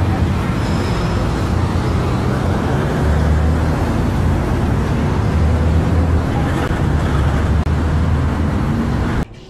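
Steady, loud highway traffic noise with a deep engine rumble, cutting off suddenly near the end.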